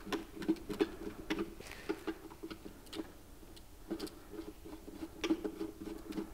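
Hand screwdriver turning a screw terminal on a blade-fuse block: small metal clicks and scraping in irregular short runs, with a brief lull about three seconds in.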